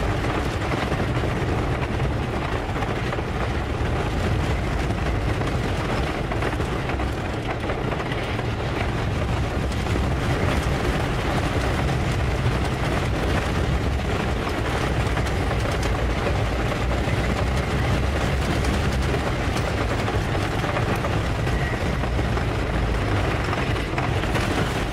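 Wooden roller coaster's PTC train running along its wooden track, a steady, loud rumble and rattle.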